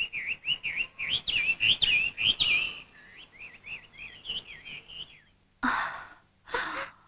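A cartoon bird's chirping: a rapid run of high twittering chirps that fades after about three seconds and stops just past five. Near the end come two short, breathy bursts.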